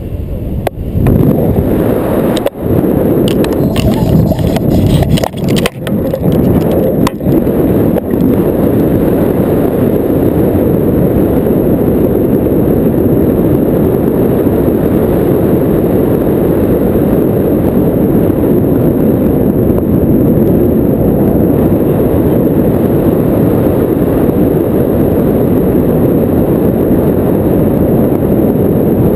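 Wind rushing over the microphone of a pole-mounted action camera in paraglider flight: a loud, steady rush. There are a few short dips and knocks in the first several seconds.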